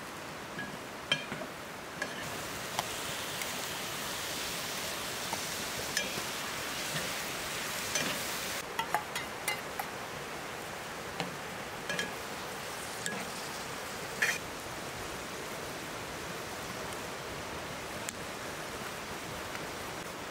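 A large metal spoon stirring lamb liver stew in a metal pot on a wood stove, clinking and scraping against the pot a dozen or so times, mostly in the first fifteen seconds. Under it runs a steady hiss from the stew sizzling, which is brighter in the first half.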